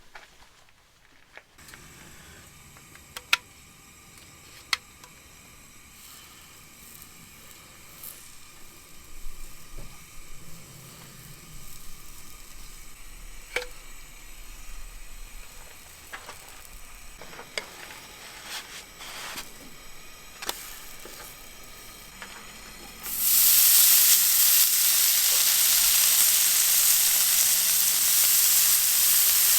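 Food frying in a hot pan for a camp breakfast. Scattered light clicks and knocks of cookware being handled come first. Then, about three-quarters of the way through, the food goes into the pan and a loud, steady sizzle starts suddenly.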